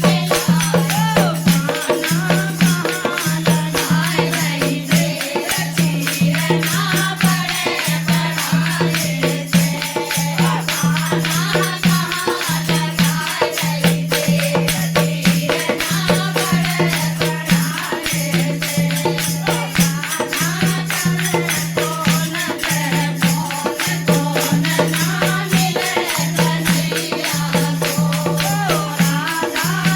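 Devotional Krishna bhajan music: a steady low drum beat with jingling hand percussion such as tambourine or rattles, under a wavering melody.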